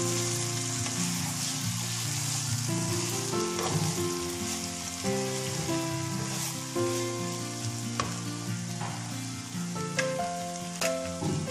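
Okra with onion and tomato sizzling in oil in a wok, stirred with a wooden spatula. There are a few sharp scrapes or taps of the spatula on the pan in the second half.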